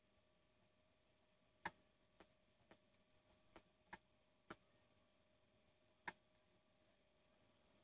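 Near silence: faint room tone with a steady hum and about seven sharp, irregular clicks between about one and a half and six seconds in.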